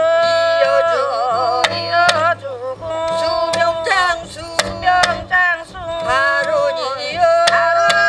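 Korean shamanic ritual (gut) music: a barrel drum (buk) struck in sharp, uneven strokes under a wavering melody of long held, sliding notes.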